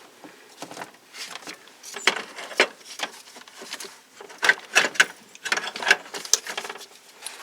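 Irregular clicks, scrapes and short rattles of hand tools and metal parts being handled while the throttle body is put back together, busiest in the second half.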